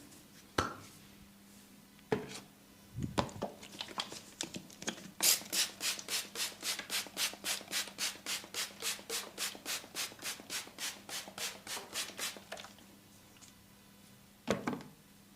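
Massage hands rubbing briskly over skin, a fast even run of about four strokes a second lasting several seconds. A few single sharp hits come before the run and one loud one near the end.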